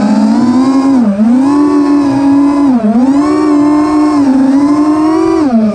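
FPV racing quadcopter's electric motors and propellers whining at high speed. The pitch dips and recovers three times, about one, three and five and a half seconds in.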